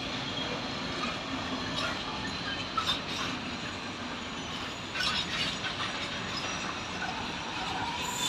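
Intermodal freight train of wagons loaded with semi-trailers rolling past, a steady rumble with the wheels clacking over the rail joints and points, the clacks coming in a run from about halfway through.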